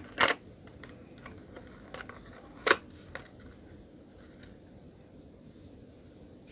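A cardboard box of slate pencils being handled and opened close to the microphone: two short, sharp papery noises, one just after the start and a louder one near the middle, then a few faint light ticks.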